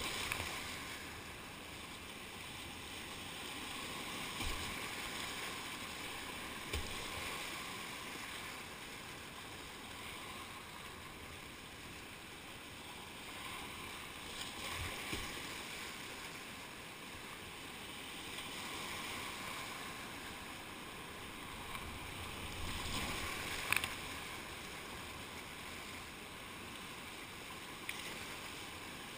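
Whitewater rapid rushing and splashing around a kayak as it paddles through the waves, swelling and easing as it goes. A few short, sharp knocks stand out, the loudest a little before the end.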